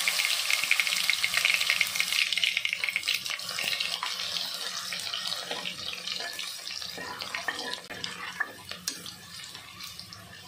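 Crushed garlic sizzling as it hits hot oil with mustard seeds and cumin in an aluminium pressure cooker. The sizzle is loudest as the garlic goes in and dies down steadily over the following seconds, with a few crackles and clicks as it is stirred with a slotted spoon.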